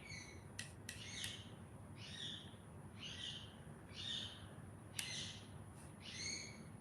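A series of short, high-pitched animal calls, about one a second, with a few sharp clicks between them.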